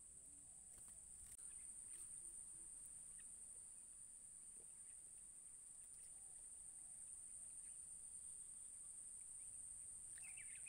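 Faint, steady high-pitched insect drone from the swamp, with a quick run of chirps near the end.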